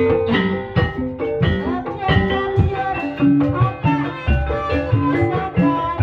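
Javanese gamelan music accompanying an ebeg dance: struck keyed percussion playing a quick melody of short held notes over regular drum beats.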